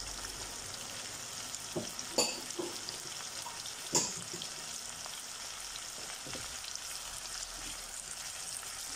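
Chicken and carrot sticks frying in oil in a non-stick pan, a steady sizzle with a few sharp clicks, the loudest about four seconds in. Near the end a spatula is put into the pan to stir.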